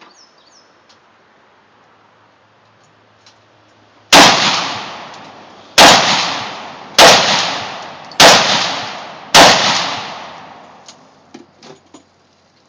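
Ruger Mini-14 semi-automatic rifle fired five times at an uneven pace, roughly one to one and a half seconds apart, each loud shot followed by a long echoing tail.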